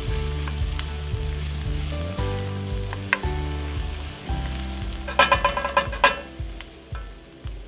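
Chopped onion, celery and carrot sautéing in butter in an enameled pan, sizzling steadily, while a metal spoon stirs and scrapes through them. The spoon scrapes hardest in a quick run of strokes about five seconds in.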